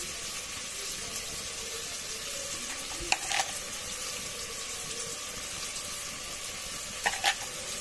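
Food frying in oil in a cooking pot: a steady sizzle, with a few short clinks about three seconds in and again near the end.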